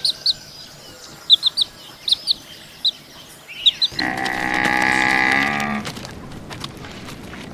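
Bird chirping in short quick clusters, then a cow mooing once about four seconds in, a loud, drawn-out moo of about two seconds.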